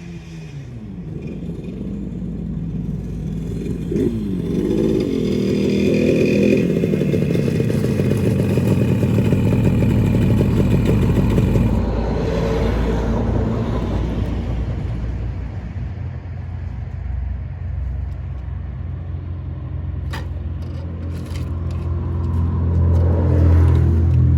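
1975 Yamaha RD350's two-stroke parallel-twin engine running and revving, its pitch dipping and rising in the first few seconds. It is loudest from about six to eleven seconds in, drops to a steadier, lower note, then builds again near the end.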